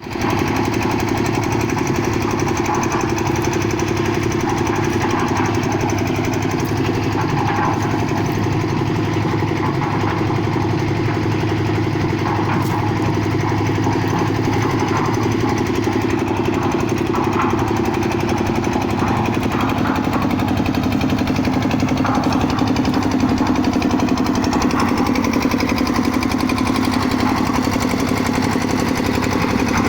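Concrete mixer running steadily, its motor going without a break; the tone shifts slightly about two-thirds of the way through.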